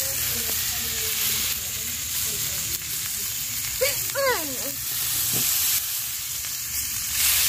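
Masala-coated fish pieces sizzling steadily as they shallow-fry in oil on a flat griddle pan (tawa).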